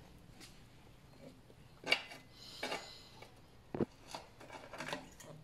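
A red ZTTO BB109 bottom bracket cup being threaded by hand into a bicycle frame's bottom bracket shell: a handful of light metallic clicks and a brief scrape as the cup is handled and turned on its threads.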